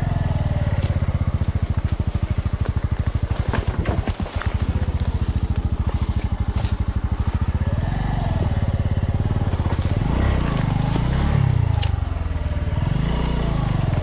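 Bajaj Boxer motorcycle's single-cylinder four-stroke engine running at low revs with an even, rapid beat, then revved up and down again and again from about eight seconds in, as the bike is worked through forest mud. A few sharp clicks and cracks sound over the engine.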